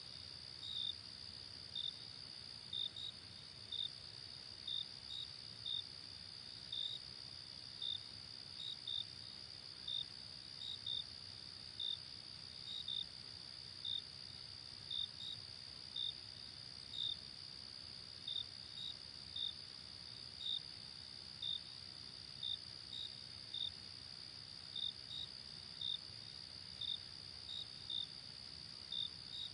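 Night insect chorus: a steady high-pitched trill with crickets chirping over it, short chirps coming about once or twice a second at an uneven pace.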